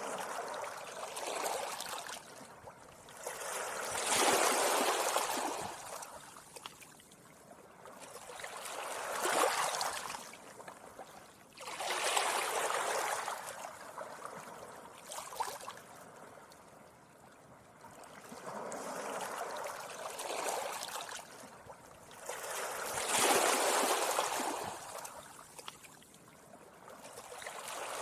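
Gentle sea waves washing up onto a beach, each one rising and breaking in a soft rush about every four to five seconds, with a quieter hiss of water between them.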